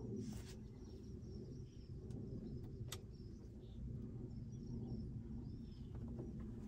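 Light aircraft's piston engine idling, a steady low rumble heard from inside the cockpit, with a couple of sharp clicks and faint high chirps over it.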